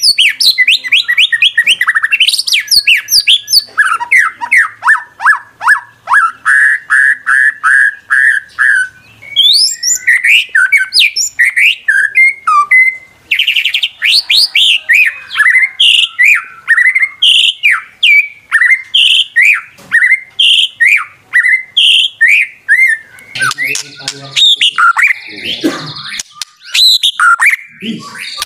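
White-rumped shama singing loudly and without pause: a fast, varied song of falling whistled sweeps, rapid trills and repeated phrases, with a harsher chattering passage near the end.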